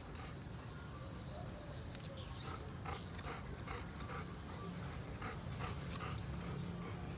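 Edible-nest swiftlets chirping and clicking, a rapid irregular run of short clicks with high twittering calls that are loudest about two to three seconds in. A steady low hum lies underneath.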